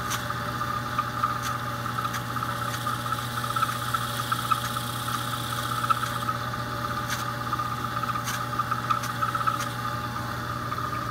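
Small metal lathe running steadily, a constant low hum with a higher whine, as a razor blade held freehand scrapes against the spinning leather cue tip to trim it; a few light ticks come through.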